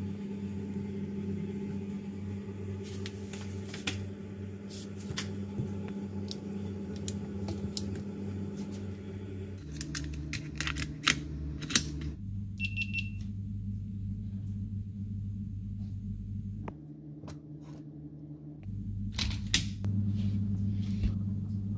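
Low sustained background music, its chords changing every few seconds. Over it come scattered sharp clicks and small knocks as the air rifle is handled and its rotary magazine is loaded.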